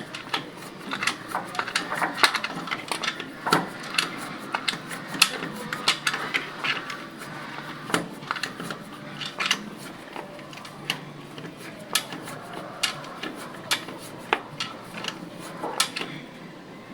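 Irregular metallic clicks and clinks of hand tools on the valve gear of a Ford 5000 tractor engine as the valve clearances are checked and adjusted.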